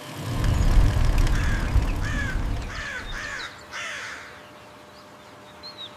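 Crows cawing several times in quick succession, over a low rumble that fades away over the first few seconds. A faint short chirp comes near the end.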